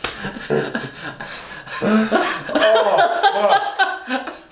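A man laughing hard in repeated bursts, the laughter coming thicker about halfway through.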